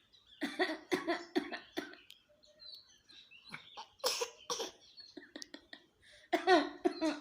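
A person sneezing repeatedly in short, abrupt bursts, coming in three bunches, with the sharpest burst about midway.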